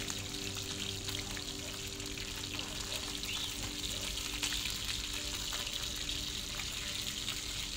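Fish frying in hot oil: a steady sizzle with many small crackles and pops.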